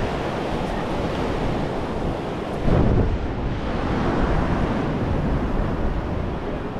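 Wind buffeting the microphone over steady surf, with a stronger gust about three seconds in.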